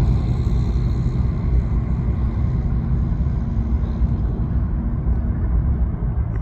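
Distant CN consist of eight GE ES44AC and ET44AC diesel locomotives running, a steady low engine rumble with a hum that eases off slightly toward the end.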